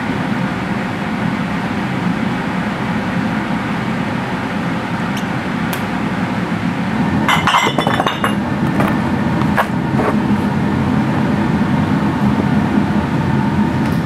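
Glass clinking: a few single clinks, then a quick cluster of them about halfway through, over a steady, loud rumbling noise.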